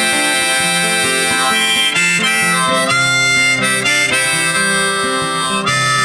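Folk music: an instrumental passage of acoustic guitar under a held lead melody, with no singing.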